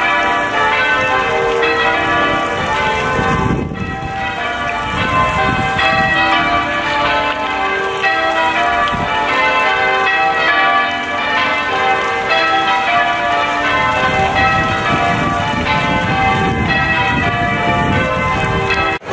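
Church bells ringing a peal from a cathedral tower: many bells struck one after another in a quick, unbroken pattern of changing notes.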